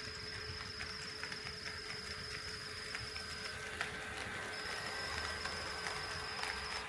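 HO-scale model train running on KATO Unitrack, its wheels clicking irregularly over the rail joints against a steady hum.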